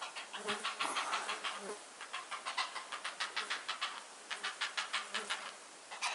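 Great blue herons at their treetop nests giving rapid clacking calls. The calls come in runs of about eight clicks a second, each run lasting roughly a second, several times over.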